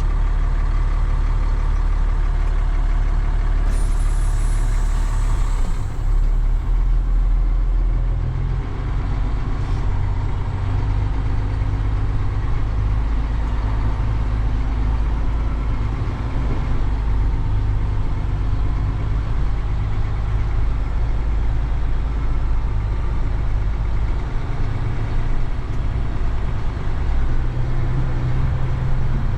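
Truck engine running steadily with a strong low rumble, heard from inside the cab. A short hiss comes in about four seconds in and lasts about two seconds.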